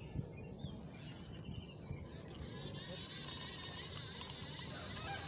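Outdoor background noise beside a pond: a steady low rumble, joined about two seconds in by a steady high hiss.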